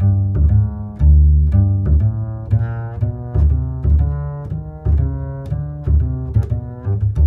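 Background music: a steady run of low, pitched notes with sharp attacks, about two notes a second.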